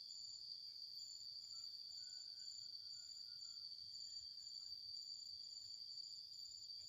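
Garden insects calling faintly: a steady high-pitched drone with a higher trill above it in short pulses, about two a second.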